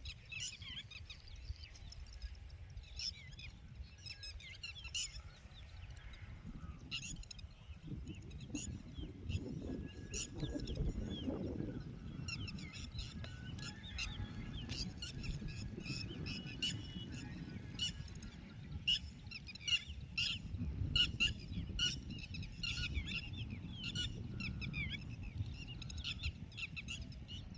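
Birds chirping: many short, high calls in quick succession that grow denser in the second half, over a low rumble.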